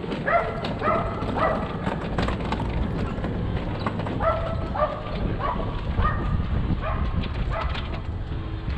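A dog barking repeatedly, about two barks a second: a few barks near the start, then a longer run from about four seconds in.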